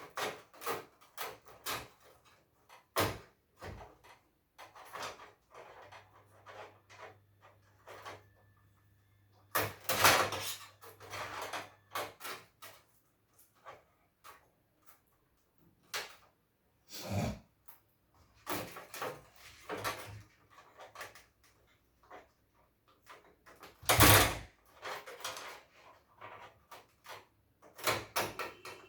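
Hands working on an opened LCD TV's LED backlight: scattered clicks, taps and scrapes of parts being handled, with louder knocks about ten seconds in and again about twenty-four seconds in.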